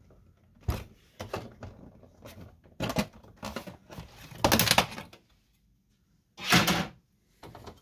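Plastic side cover of an HP ENVY 5660 printer being pushed off its clips and lifted away: a string of plastic clicks and knocks, with several short scraping rattles.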